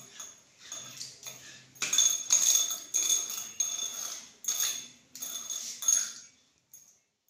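A hand rubbing over a stone grinding slab (shil) in a run of short scrubbing strokes, about two a second. The strokes are louder from about two seconds in and stop about six seconds in.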